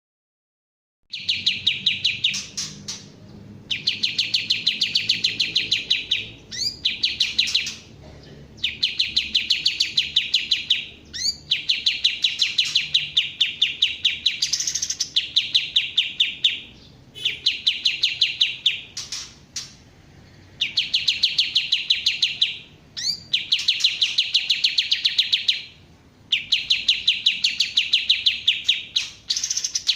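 Kapas tembak songbird singing: repeated phrases of rapid, evenly spaced high chirps, each about two to three seconds long with short pauses between. The song starts about a second in.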